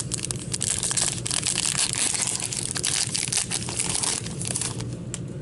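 Foil wrapper of a Fleer Ultra hockey card pack being torn open and crinkled by gloved hands: a continuous dense crackling.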